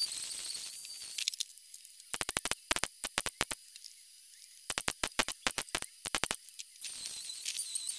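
Angle grinder running against the steel body panel for about the first second, then two runs of rapid, sharp MIG welder crackles as the repair strip is stitch-welded, and the grinder starts up again near the end.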